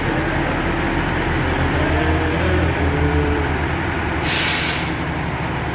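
Heavy diesel engine running steadily, with a short hiss of released air about four seconds in.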